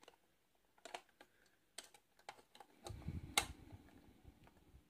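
Light clicks and taps of an all-metal diecast toy truck being handled as its tractor unit is worked free of the trailer coupling. From about three seconds in there is a low rubbing rumble of handling with one sharper click in it.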